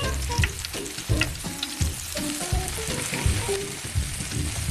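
Pancake batter sizzling in hot oil in a tiny frying pan, with irregular soft pops.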